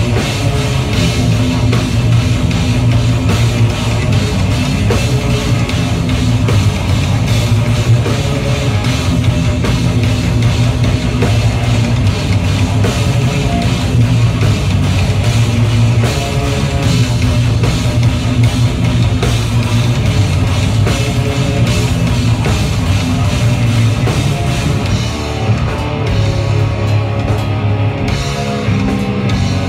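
Live heavy rock band playing loud: distorted electric guitars, bass and a full drum kit. About twenty-five seconds in the cymbals drop away for a few seconds before the full band comes back.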